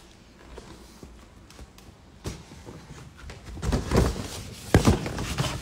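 Handling noise: a few dull knocks and rustles as a phone and things around it are moved about, the loudest two close together near the end.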